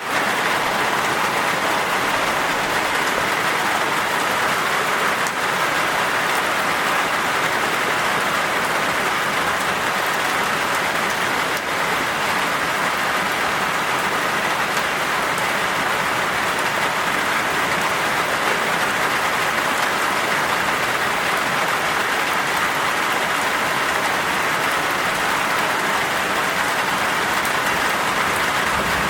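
Steady rain falling, an even dense hiss with fine scattered drop ticks that does not change in strength.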